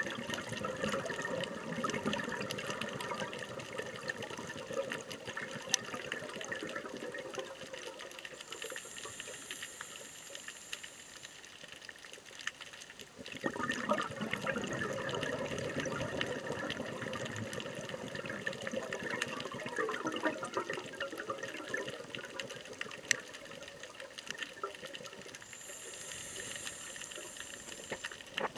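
Scuba diver's breathing heard underwater through the regulator: long rushes of exhaled bubbles, each followed by a short high hiss of inhaling, twice.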